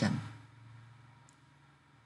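The last word of a man's speech trailing off, then near silence: faint room tone with a low hum.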